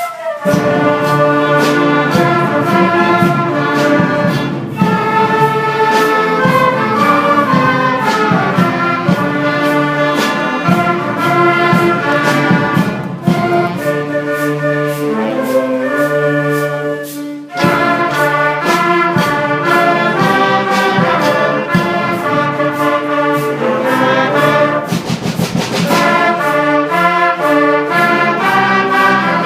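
Orchestral music with prominent brass.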